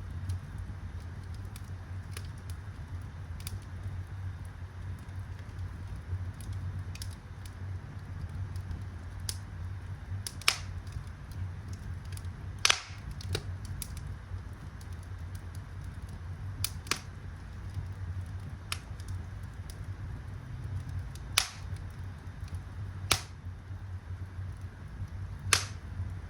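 Wood fire in a fireplace crackling, with sharp pops every second or two over a low, steady rumble.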